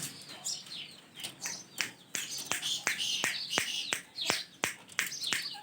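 A pair of ringneck parrots calling: a rapid series of short, sharp calls that sweep down steeply in pitch, about three a second, mixed with higher chirps. The calling grows louder and busier about two seconds in.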